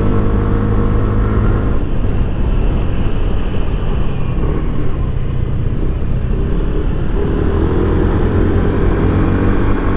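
Yamaha Aerox 155 scooter's single-cylinder engine running on the move, with wind rushing over the microphone. Its steady hum sinks under the wind rumble about two seconds in and comes back about seven seconds in.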